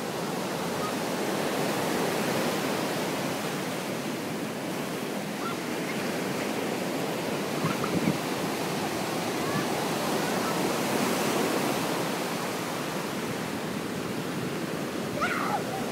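Ocean surf breaking on a beach: a steady rushing wash that swells and eases slowly.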